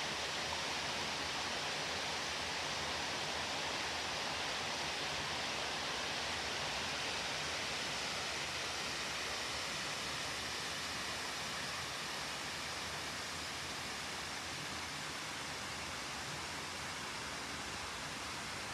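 Steady rushing of water from a small waterfall and mountain stream, an even hiss that eases slightly about halfway through.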